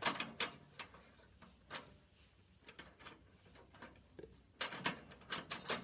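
Screwdriver working a small screw out of a graphics card's mounting bracket in a PC case: scattered light clicks, with a quick run of clicks near the end.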